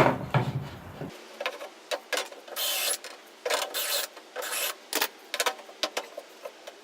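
Power drill with a step bit cutting into a wooden board in a series of short bursts, the longest about half a second, with clicks in between, as already-drilled holes are widened for a microwave's plastic feet.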